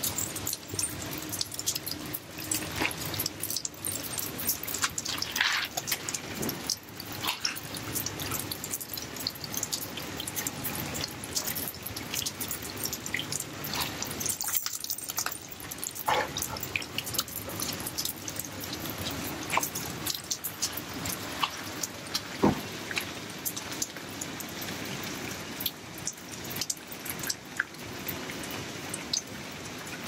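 Rainwater dripping and splattering on a wet concrete rooftop: many irregular drips and small splashes over a steady watery patter, with one louder knock about three quarters of the way through.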